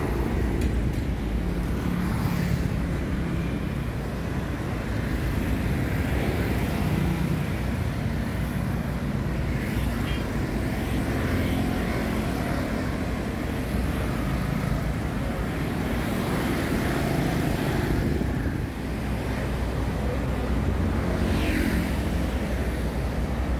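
Steady street traffic: motorbikes and cars passing close by on a busy city road.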